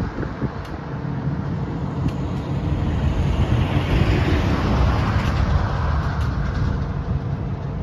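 Passing road traffic: a steady rumble of tyres and engines, with one vehicle swelling up and fading again about four to six seconds in.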